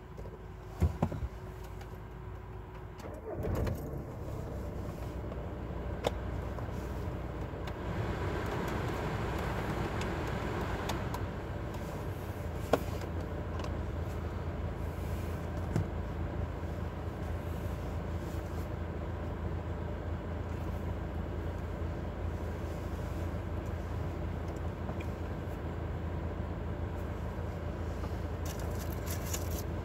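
Steady low hum inside a car cabin, with a few sharp clicks and soft rustling from a clip-lid plastic food box being handled and opened.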